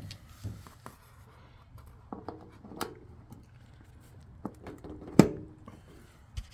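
Small handling clicks and knocks as a power plug is pushed into the outlet of a step-up/step-down transformer, with one sharp click a little past five seconds in.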